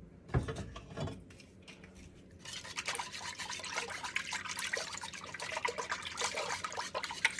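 Whisk beating milk and eggs together in a pot: a quick, continuous sloshing and clinking that starts about two and a half seconds in, after a few light knocks.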